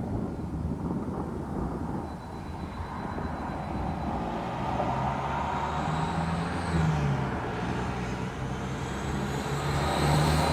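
A motor vehicle running close by, its engine tone wavering in pitch from about four seconds in and growing louder near the end, over a steady low rumble.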